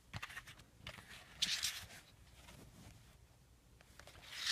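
Handling noise of a plastic Blu-ray case and its cardboard slipcover being moved and slid: a few light clicks, then a brief scraping rustle about one and a half seconds in.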